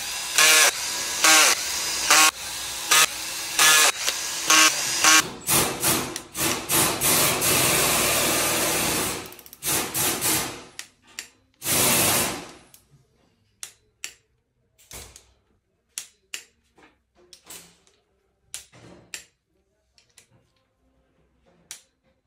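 Cordless drill-driver spinning bolts into the camshaft bearing caps in a quick string of short bursts, then one run of several seconds and a last short burst. From about halfway, a hand ratchet clicks in short, scattered strokes as the cap bolts are snugged down.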